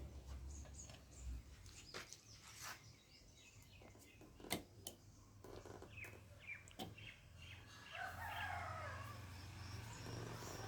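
Faint, scattered clicks and taps of hand tools working on a motorcycle's wiring harness fittings. Birds chirp in the background, with a short burst of calls about eight seconds in.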